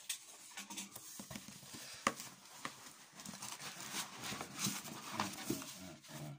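Inflatable plastic air-column packaging being gripped and pulled out of a cardboard box: irregular crinkling, rustling and rubbing against the cardboard, with a sharp click about two seconds in.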